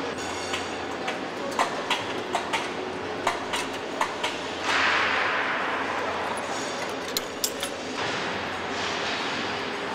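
Truck assembly-line factory noise: scattered sharp clicks and knocks of metal tools and parts over a steady hum, with a hissing burst about halfway through that fades over a few seconds.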